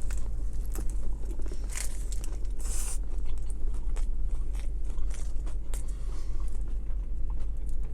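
A person chewing a big mouthful of a McDouble-and-chicken sandwich stuffed with fries, close to the microphone: wet mouth clicks and soft crunches. A brief rustle or crunch comes about three seconds in, over a steady low hum.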